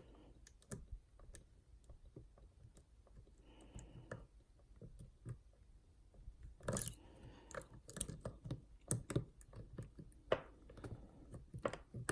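Faint, irregular small metallic clicks and scrapes of a lock pick and tension wrench working the last pin or slider inside a Yale Superior lock cylinder, with a couple of short, louder rustling noises about four and seven seconds in.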